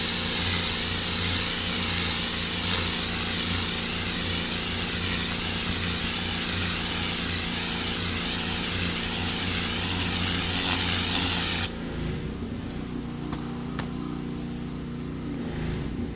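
Pressure washer jetting water onto concrete: a loud, steady spray hiss over the machine's low motor hum. About three-quarters of the way through, the spray cuts off suddenly while the motor keeps running, more quietly.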